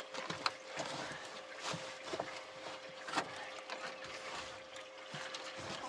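Irregular clicks and knocks of gear and movement in a small fishing boat, over a steady faint hum.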